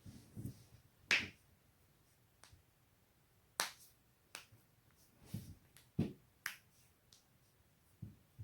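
Neck joints cracking: about seven sharp pops at irregular intervals, the loudest about a second in.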